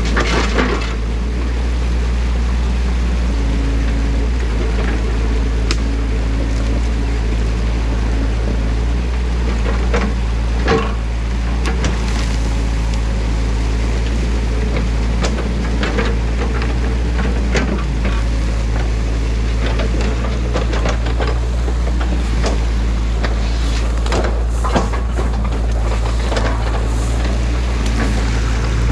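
Excavator's diesel engine idling steadily, together with water rushing through a breach in a beaver dam. Occasional short clicks and snaps come through on top.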